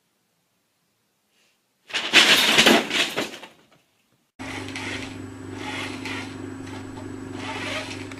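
A short loud crash or clatter, like something knocked over and breaking, about two seconds in; after a gap, a steady low hum with background noise takes over.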